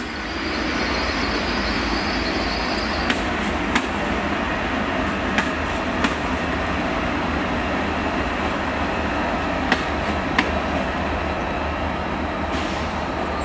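GWR Hitachi Intercity Express Train passing at low speed with a steady rumble of wheels on rail. Its wheels click in pairs, bogie after bogie, as they cross rail joints and pointwork. A faint high whine runs through the first few seconds.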